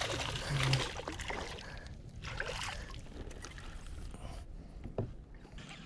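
Water splashing and lapping around a kayak, strongest in the first second and then fading, with a few light knocks against the hull near the end.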